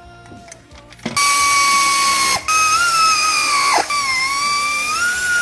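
A handheld power tool, such as a drill or ratchet, running at high speed with a loud whine in three runs back to back, the pitch dropping sharply as it winds down at the end of each run.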